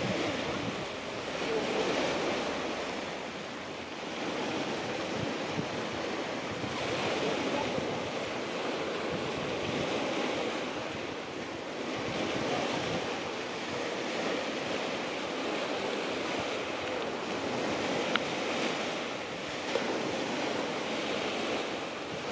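Sea surf breaking and washing onto a beach, swelling and easing every few seconds, with wind on the microphone.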